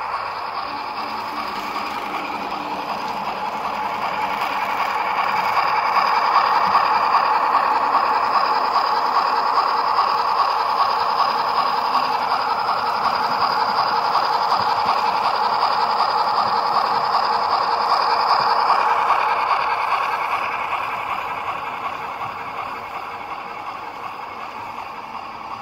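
HO scale model of a Union Pacific 4-6-6-4 Challenger steam locomotive running along the track with its DCC sound decoder playing steam locomotive sounds. It grows louder over the first few seconds as it passes close, holds, then fades as it runs away.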